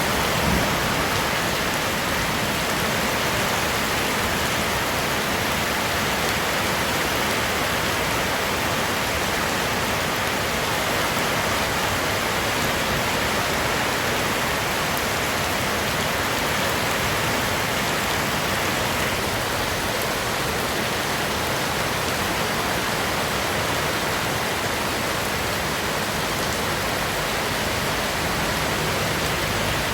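Heavy rain falling steadily, a constant even hiss of rain on the ground and surfaces.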